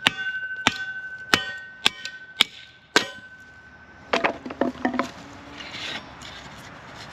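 Small sledgehammer striking wood down onto a cast-iron Kindling Cracker: six sharp blows about half a second apart, each with a high metallic ring, splitting a piece of firewood. About four seconds in comes a quick run of wooden cracks and knocks.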